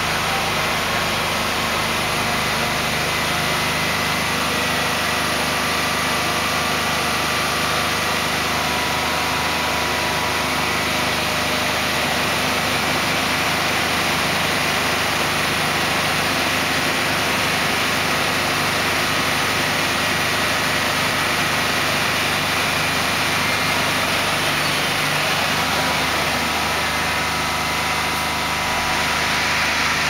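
Diesel engine of a heavy-haul multi-axle transporter running steadily as the loaded trailer creeps along.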